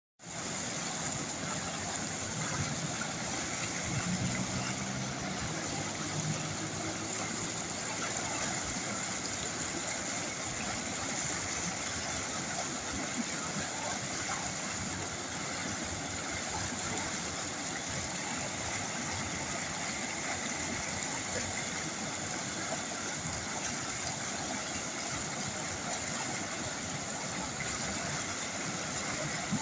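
A river flowing steadily, an even rush of water. A faint low pitched sound, a distant voice or motor, rises briefly a few seconds in.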